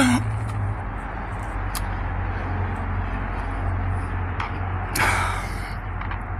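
A steady low hum, with scattered faint clicks and a short burst of noise about five seconds in.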